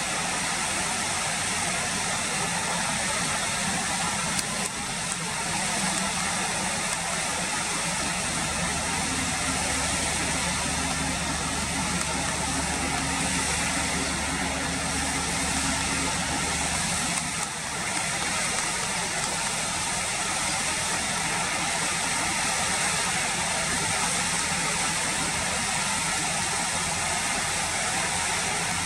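River water rushing steadily. A low engine hum runs under it from about a quarter of the way in until just past the middle.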